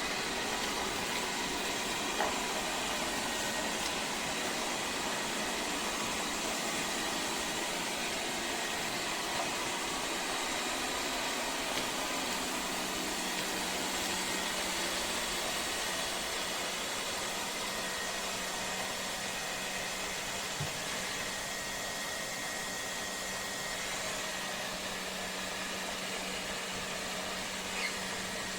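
Lefant M210 Pro robot vacuum cleaner running: a steady suction-motor whir with a constant hum and a few light clicks.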